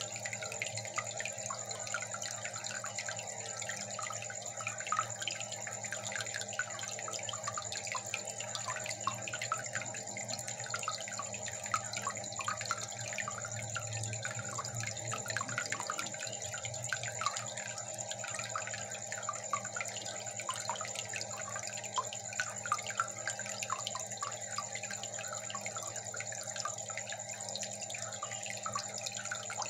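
Aquarium water bubbling and trickling steadily, with many small quick plinks, over a faint low hum.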